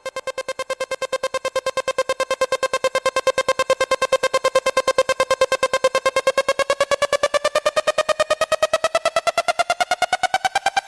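Electronic fire alarm sounding a rapid, evenly pulsing tone that grows louder over the first few seconds, then holds steady and starts to rise in pitch near the end.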